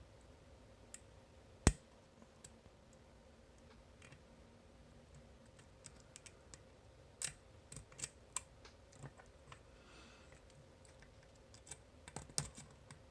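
Lock picking on a cam lock: sparse, sharp metallic clicks and ticks of the pick and tension tool working the pins, with one louder click a little under two seconds in and small clusters of clicks around seven to eight seconds and again near the end. The lock gives little feedback and is being picked under heavy tension.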